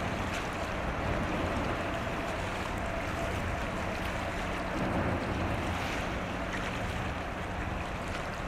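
Steady rush of wind and sea, with a low, even engine drone from ship traffic underneath.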